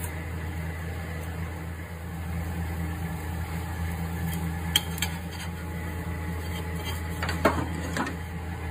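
Metal kitchen utensils clinking a few times against a steel bowl and a dosa tawa, over a steady low hum.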